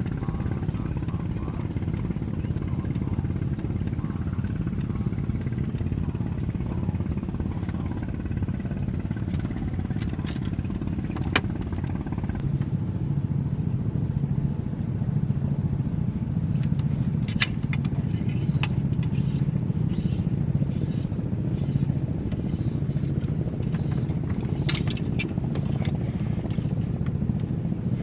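Small boat engine running steadily at a constant pitch, with a few sharp clicks and knocks over it.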